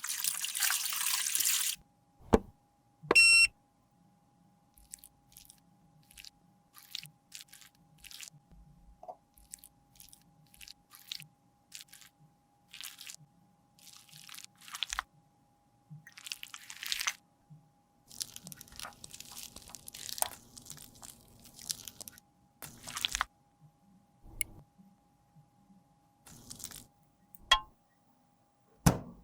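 Cosmetic repair handling sounds. A short spray burst is followed by a couple of sharp clicks, then irregular on-and-off scraping and crunching of makeup being crushed and worked.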